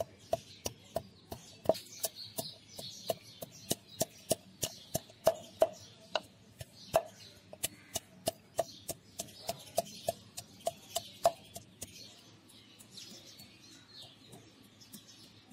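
Wooden pestle pounding garlic cloves in a wooden mortar: sharp, hollow knocks about three a second, each with a short ringing note, dropping to faint taps after about eleven seconds as the garlic is crushed to a paste.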